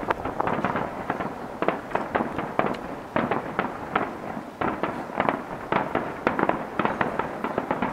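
Aerial firework shells bursting in quick succession, a dense irregular run of sharp bangs and pops.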